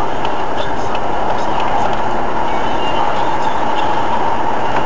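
Steady road and engine noise of a moving car heard inside its cabin through a dashcam's microphone, with a few light scattered ticks.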